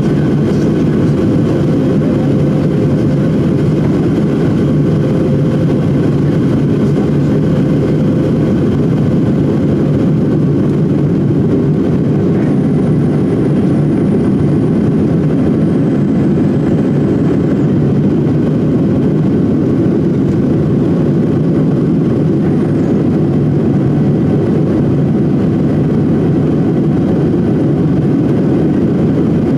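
Airliner cabin noise: a steady drone of the jet engines and airflow heard from inside the cabin, with faint steady whines on top and no change in level.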